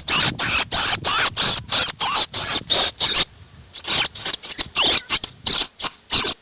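A man's vocal imitation of two common mynas fighting: a rapid string of shrill, squeaky chirps about five a second, breaking off briefly a little over three seconds in, then starting again.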